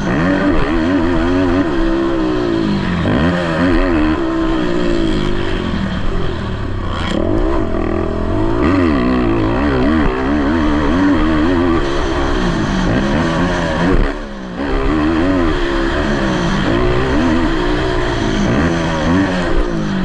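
Motocross race ATV engines revving hard, their pitch climbing and falling again and again as they accelerate and shift, with a brief drop in sound about two-thirds of the way through.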